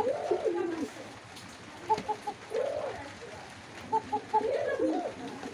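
Domestic pigeon cooing: repeated phrases of a few short notes followed by a longer coo that rises and falls in pitch, about one phrase every two seconds.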